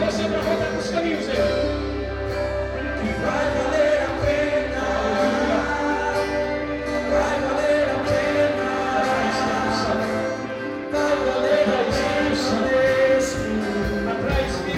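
Worship band playing gospel music with singing, sustained chords over a low bass line.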